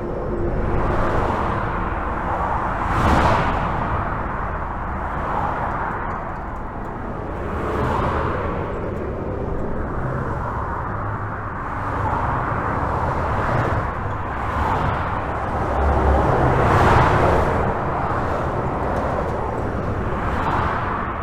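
Continuous highway traffic heard from under a bridge: a steady hiss of tyres and engine rumble, swelling each time a vehicle passes, with louder passes about three seconds in and again near the end.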